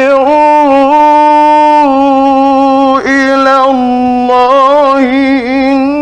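A male Quran reciter's voice in the melodic mujawwad style, holding long drawn-out notes with ornamented turns in pitch, with a brief break for breath about three seconds in.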